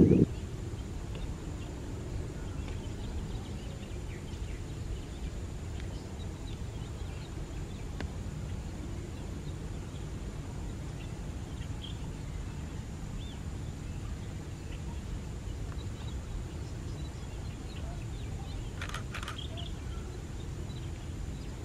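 Steady low outdoor rumble with faint, scattered bird chirps, and a short bird call near the end.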